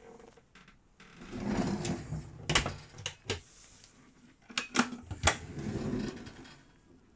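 Kitchen drawers and cupboard fronts being worked: a drawer sliding on its runners, a run of sharp clicks and knocks from the latches and the pans inside, then another slide.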